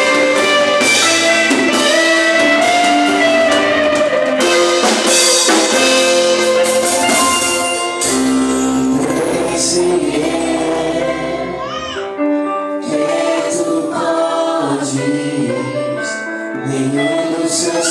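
Live church worship music: a band playing while singers lead a praise song. About eight seconds in the drums and full band drop out, leaving held notes and voices.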